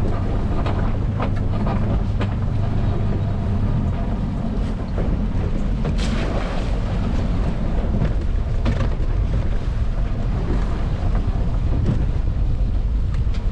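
Small boat's outboard motor running steadily under way, with wind on the microphone and water rushing past the hull. A few sharp knocks, the clearest about six seconds in.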